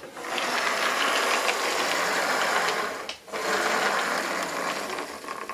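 Lima H0 BR 218 model diesel locomotive running along the track on its test run, its motor and gearing giving a steady whirring rattle, freshly cleaned and oiled. The sound drops away briefly about three seconds in, then returns.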